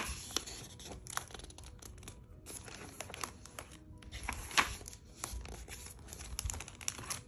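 Pages of a large textbook being flipped and handled by hand: paper rustling with scattered crinkles and light taps.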